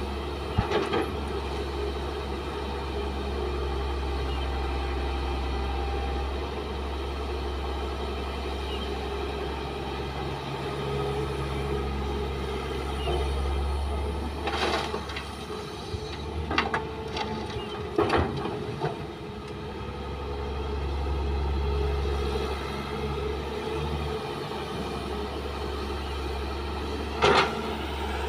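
Kobelco hydraulic excavator's diesel engine running steadily, its drone swelling and easing with the digging and swinging. Several sharp knocks cut through it as soil and rock drop into a dump truck's steel bed: one near the start, a cluster around the middle, and one near the end.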